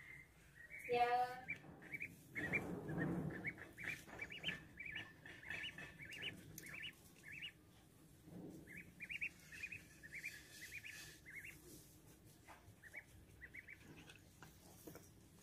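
Young duck peeping: runs of short high peeps, several a second, through most of the clip. About a second in there is a brief, louder pitched cry.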